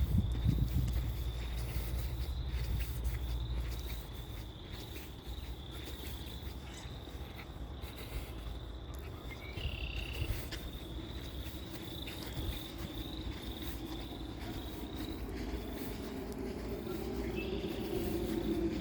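Insects, likely crickets, chirping steadily in a high pulsing trill. Near the end a low engine hum grows louder.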